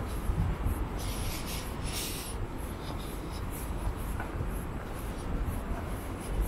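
Short scuffing and rubbing noises close to the microphone, several a second, over a low steady city rumble.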